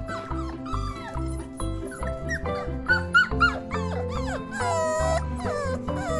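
Puppies whining and yipping in short high cries, several in quick succession around the middle and one longer whine a little before the end, over background music with a steady beat.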